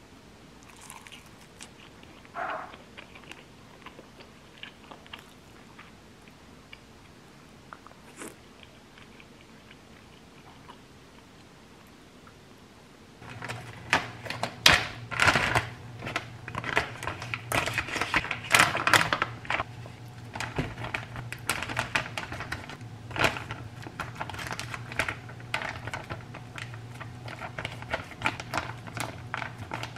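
A few faint eating sounds. Then, from about halfway, a plastic zipper bag crinkles and rustles with many sharp irregular clicks as minced garlic is scooped into it and spread flat with a spatula, over a steady low hum.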